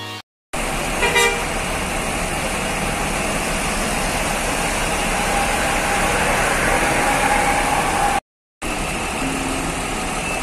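Bus terminal traffic: the steady noise of bus engines running and moving, with a short horn toot about a second in. The sound cuts out briefly twice.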